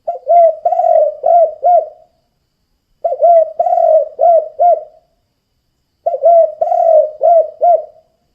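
Spotted dove (tekukur) cooing its song three times, each phrase a quick run of five or six low arched coos, with about a second of silence between phrases.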